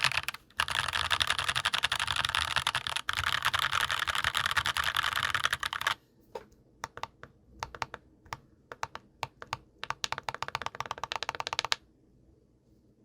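Typing on a GMMK Pro mechanical keyboard with factory-lubed HUANO White Blue switches and GMK keycaps: a fast, continuous run of keystrokes for about six seconds, with one brief pause, then slower, separate keystrokes that stop shortly before the end.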